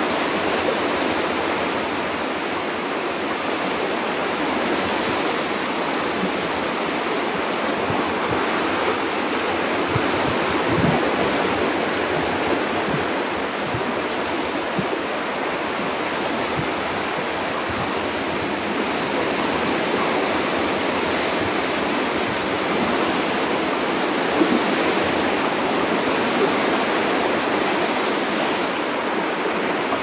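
Ocean surf breaking and washing over a rocky lava shoreline: a steady, unbroken rush of waves with no single wave standing out.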